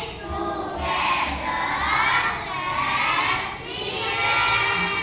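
A group of children singing together, many voices at once in phrases of about a second each.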